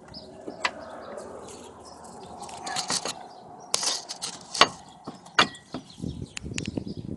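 Irregular light metallic clicks and knocks of brake pads and caliper parts being handled and fitted onto a car's front brake.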